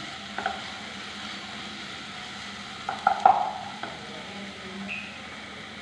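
Sliced onions, curry leaves and green chillies sizzling in oil in a nonstick pan while a plastic spatula stirs them, with a few knocks and scrapes of the spatula on the pan, the loudest a little after three seconds in.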